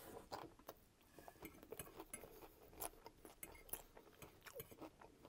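Faint close-miked chewing of soft fries in Coney sauce, with many small wet mouth clicks, and a metal fork clinking and scraping on a ceramic plate as fries are speared near the end.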